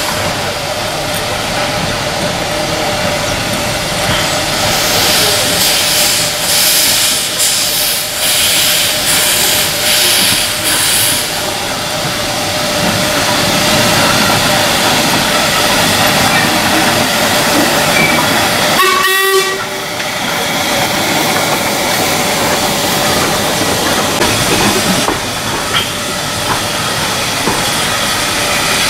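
1945 Stephenson 0-6-0 steam locomotive hissing steam as it moves slowly while shunting, with a run of slow exhaust chuffs for several seconds in the first half.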